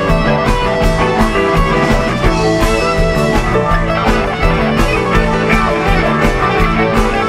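Live rock band playing an instrumental jam: electric guitars over bass and drums, with a steady beat.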